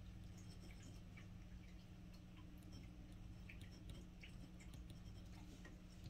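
Faint scratching and light ticks of a glass dip pen's nib writing on a paper swatch card, over a steady low hum.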